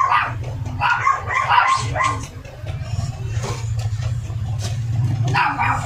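A dog barking: a quick run of barks in the first two seconds and another bark near the end, over a steady low hum.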